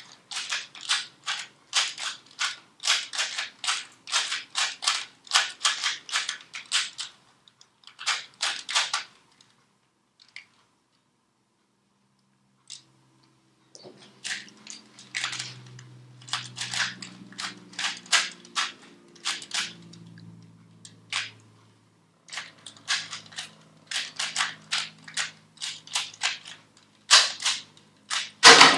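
Rapid clicking and clacking of a 3x3 Rubik's cube being turned quickly by hand, in runs of turns with a pause of a few seconds near the middle. The clacks are loudest near the end.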